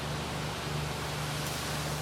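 Ocean surf on a sandy beach in a lull: a spent wave fading into a soft, even wash of foam and water. A low steady hum runs underneath.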